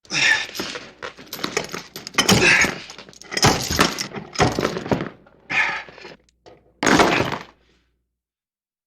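Metal chains clanking and rattling in a run of about seven uneven bursts. They stop shortly before the end.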